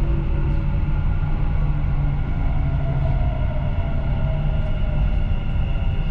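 Dubai Metro train running along the track, heard from inside the front car: a steady rumble of wheels and running gear with steady motor tones over it.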